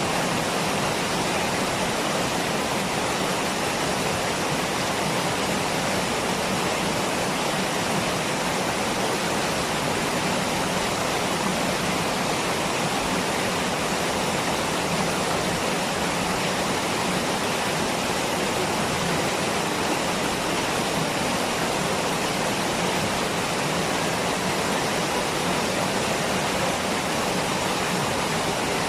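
Waterfall: a steady rush of falling water that holds even throughout, with no other events.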